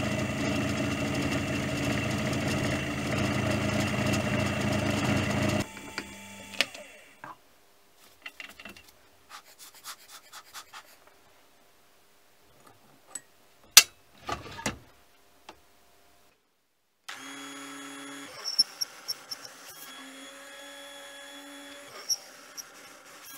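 Milling machine spindle running loudly as an end mill cuts a steel ring, then shutting off about six seconds in and winding down. A stretch of light clicks and taps follows, with one sharp click midway. About seventeen seconds in, a mini lathe driven by a sewing-machine motor runs more quietly as a boring tool cuts inside a small aluminium part, with light ticking.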